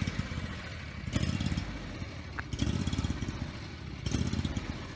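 Ferris IS600Z zero-turn mower engine idling unevenly, rising and falling about every second and a half. The rough idle is part of the mower's ongoing engine problems.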